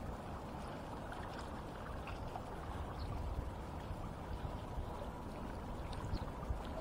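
Sea water washing against shoreline rocks: a steady wash with a few faint ticks.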